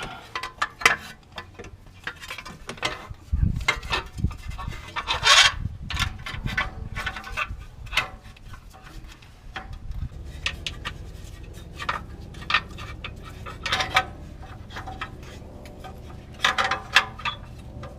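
Sheet-metal heat shield being worked into a tight spot by hand, scraping and rubbing against the surrounding parts, with scattered clicks and clanks of metal on metal.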